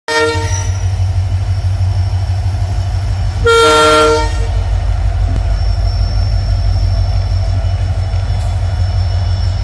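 WDP4D diesel locomotive departing: its EMD 16-710 two-stroke engine gives a deep, steady rumble. The air horn gives a short toot at the very start, then a louder blast of about a second a little over three seconds in.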